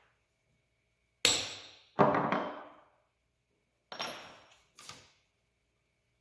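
Hammer striking a steel transfer punch twice, sharp blows that each ring and fade over most of a second, marking divots in the rifle stock through the cheek riser's slots. Two lighter knocks follow.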